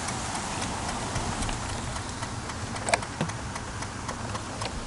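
Irregular light clicking from a 1995 Volkswagen Golf with the key out of the ignition, over a steady hiss, with one louder click about three seconds in. The clicking stops when the light is switched on.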